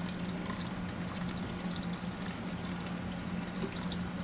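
Lobster stock pouring steadily from a stainless steel pot into a cheesecloth-lined strainer, a continuous liquid splash. A steady low hum runs underneath.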